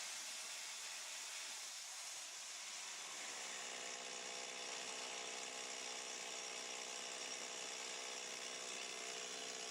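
Faint chainsaw running in a chainsaw mill: a hiss at first, then about three seconds in the motor's whine rises slightly and holds steady.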